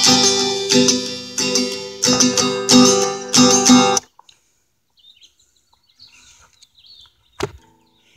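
Acoustic guitar strumming a repeated chord rhythm, then cutting off suddenly about four seconds in. Faint chirping follows, and a single knock of a hand on the phone near the end.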